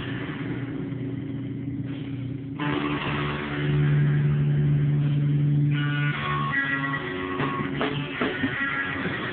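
Live band music through a phone microphone: electric guitar and bass played loud, with a held low guitar note that swells a few seconds in, then choppy playing and sharp hits near the end. The sound is cut off at the top.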